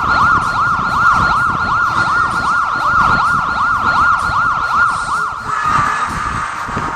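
Electronic siren sounding: a fast yelping warble, about three up-and-down sweeps a second, over a steady high tone. It stops about five and a half seconds in.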